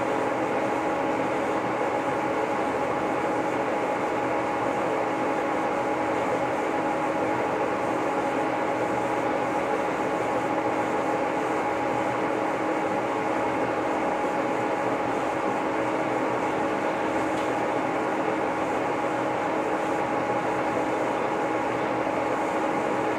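Lucas model 41 horizontal boring mill running steadily while its spindle bores a pin hole through the steel quick attach: an even machine hum with a few held tones that does not change.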